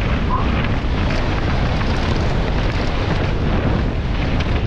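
Heavy wind buffeting on a helmet camera's microphone as a downhill mountain bike runs at speed, with tyre rumble and a chattering clatter from the bike over boardwalk slats and gravel.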